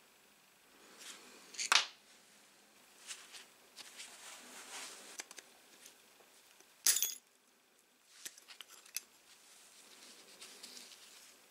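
Metal tools clinking and scraping against the aluminium gear housing and bearing retaining ring of a Bosch GWS 7-115 angle grinder, with soft glove handling noise. Two sharp metallic clicks stand out, one about two seconds in and one about seven seconds in, followed by a run of small ticks.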